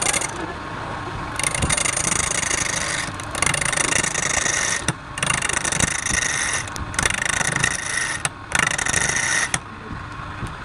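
A tool scraping against wood spinning on a woodturning lathe, in passes several seconds long broken by short pauses, with the lathe running underneath.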